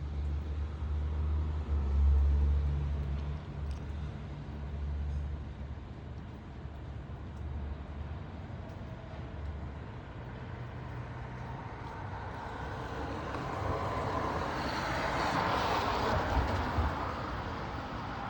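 Road traffic with a low rumble. Near the end a passing vehicle's tyre noise swells into a hiss, then fades.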